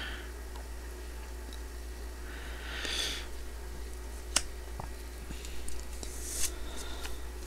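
Quiet handling of trading cards: a soft swish about three seconds in, a single sharp click a little past four seconds, and light rustles near the end, over a low steady hum.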